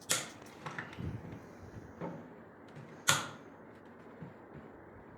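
Sharp clicks and softer knocks from handling the parts and wiring of a DIY Peltier-module mini air conditioner: two loud clicks about three seconds apart, with a few lighter knocks between them.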